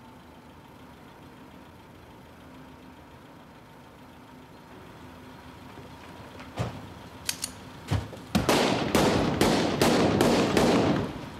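A quick run of about seven loud handgun shots, each echoing, fired over roughly two and a half seconds near the end. A few separate knocks and clicks come just before them.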